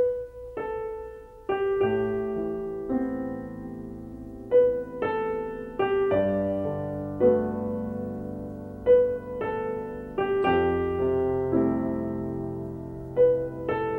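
Slow, gentle piano music: single notes and soft chords struck about every second or so and left to ring out.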